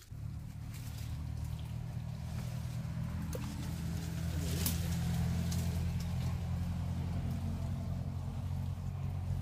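An engine running steadily, a low even hum that grows somewhat louder over the first few seconds and then holds.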